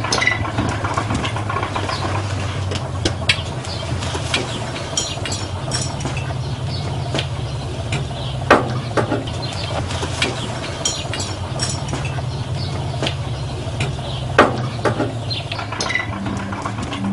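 An engine idling steadily, with scattered sharp clanks and knocks over it every second or so.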